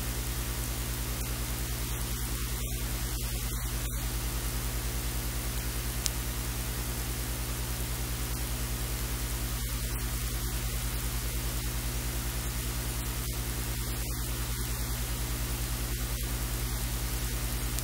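Steady electrical hiss with a low, constant hum and its overtones, the noise floor of the recording, with one sharp click about six seconds in.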